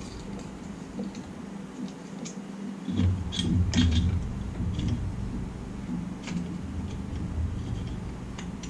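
Hands working in a Jeep engine bay: scattered small clicks and rattles of parts and wiring being handled, with a louder spell of knocking and rustling about three to four seconds in, over a steady low hum.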